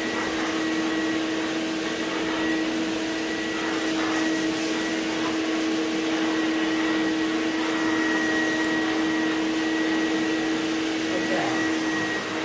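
Vacuum cleaner running steadily, its hose nozzle drawn over a carpeted workbench to pick up scraps of old chair cane, with a constant pitched whine over the rush of air.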